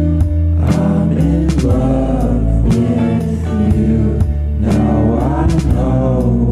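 Background music: a song with a singing voice over sustained bass and instrumental accompaniment.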